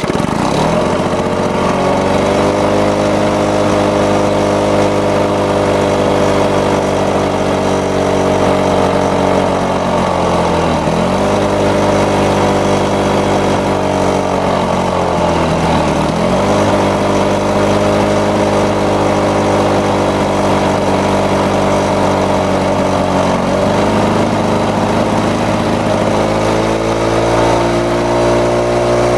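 Lawn-Boy mower's two-stroke engine catching and running steadily at low speed, with two brief sags in pitch a third and halfway in. From about three-quarters in, its pitch steps up as the speed control is moved toward high, the governor spring having just been given more tension so it runs faster.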